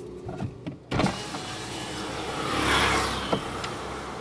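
A car's electric window moving: a knock about a second in, then a motor sound that swells to a peak near the three-second mark, over the car's steady low hum.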